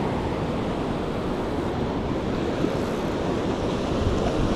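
Ocean surf washing steadily up a sandy beach, with wind rumbling on the microphone.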